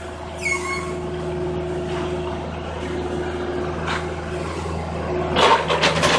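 Backhoe's diesel engine running steadily, with a short squeak about half a second in and a louder burst of noise near the end.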